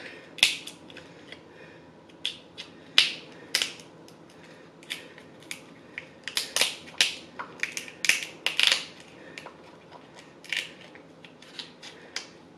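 Kitchen shears snipping through crab leg shells: an irregular string of sharp cracks and snips, the loudest about three seconds in and again around eight seconds.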